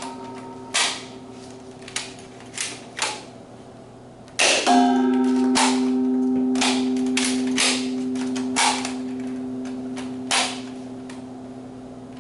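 Nerf Rival blaster firing about ten sharp snapping shots at irregular intervals. About four seconds in, one loud strike sets off a long, steady ringing tone that slowly fades.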